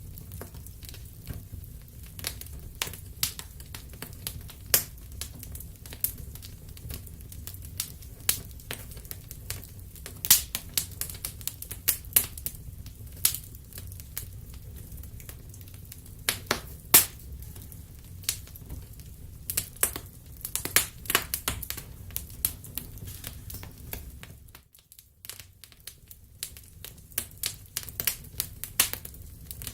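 Wood fire crackling in a fireplace: irregular sharp pops and snaps from the burning wood over a low steady rumble. The low rumble drops out for a moment about 25 seconds in.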